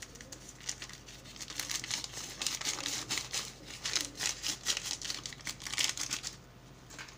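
Food packaging crinkling and rustling in quick crackles as it is handled and opened. The crackles die away about six seconds in.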